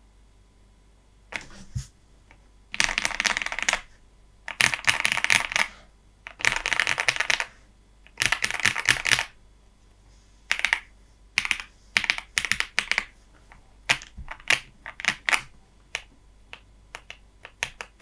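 Zoom65 mechanical keyboard being typed on, recorded through a USB microphone. Starting about a second in, it gives a run of fast-typing bursts about a second long every couple of seconds, then from about ten seconds in single keystrokes and short clusters of a few keys.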